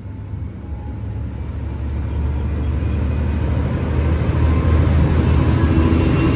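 V/Line N class diesel-electric locomotive running under power, a deep engine rumble that grows steadily louder.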